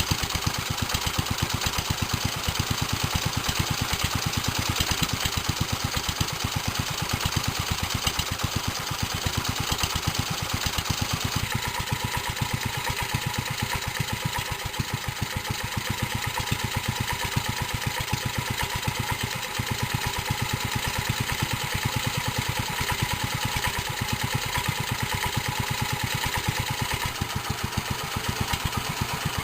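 1946 J.A.P. Model 5 side-valve single-cylinder four-stroke petrol stationary engine running steadily without load, its governor locked off, with an even firing beat. About a third of the way in, a higher steady tone joins the beat.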